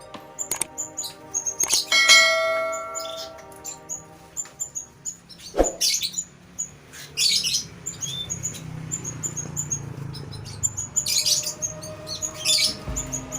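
Canaries chirping with many short, high calls, repeated throughout. About two seconds in, a bell-like ring sounds and fades out over a second or two.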